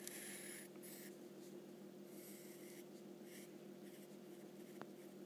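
Faint scratching of a fine pen drawing on paper, in a few short strokes, the longest in the first second, over a steady low hum.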